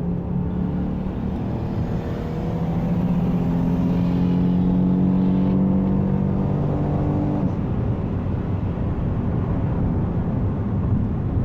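Car engine accelerating hard, its note rising steadily for about seven seconds before it changes abruptly.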